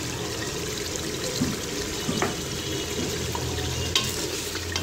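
Wooden spoon stirring a thick beef curry in an aluminium pressure cooker, the curry sizzling steadily on the heat, with a couple of light taps of the spoon on the pot.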